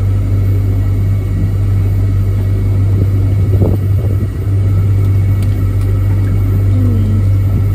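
Small hire motorboat's motor running steadily as the boat cruises slowly, a constant low hum.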